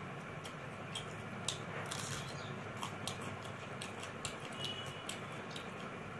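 Eating sounds of rice and mutton curry eaten by hand: irregular small clicks and taps, about two a second, over a steady background hiss.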